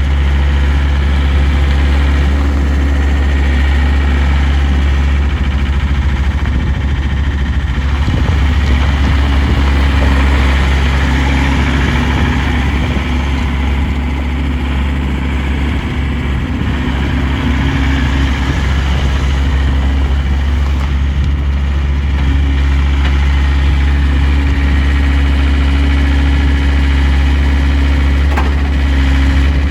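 John Deere 332 skid steer's diesel engine running steadily at idle with a deep, even hum.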